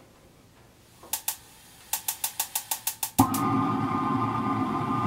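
Electric spark igniter on a propane wok burner clicking: two clicks, then a rapid run of clicks at about seven a second. A little past three seconds in, the propane catches with a sudden whoosh and the burner then burns with a loud, steady rushing sound with a whistle in it.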